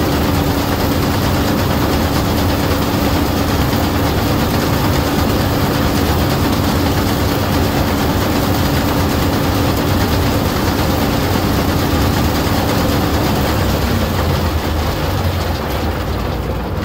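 John Deere 9600 combine running hard with its feeder house driven, being tested after a header reverser gearbox rebuild: a loud, steady machine noise with a steady whine that drops out about thirteen seconds in. It runs without grinding, and the repair is judged good.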